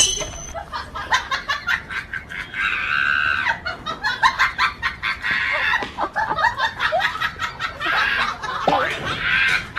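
Chickens clucking and squawking in a rapid run of short, harsh calls, louder in two spells: a few seconds in and near the end.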